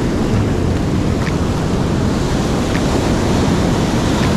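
Ocean surf washing steadily onto the beach, with wind buffeting the microphone.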